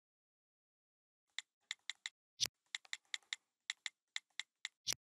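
Smartphone on-screen keyboard tap clicks: a run of quick, light typing taps, about four a second, starting about a second and a half in, with two louder taps, one about halfway and one at the end.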